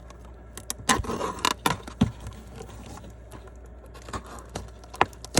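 A sealed trading card box being handled and opened, with a run of irregular crinkles, clicks and snaps of packaging. The sharpest snaps come about a second in and again near the end.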